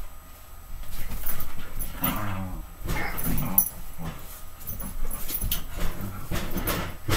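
A dog growls low in play while scuffling about on a bed, with scratchy rustling of the bedding.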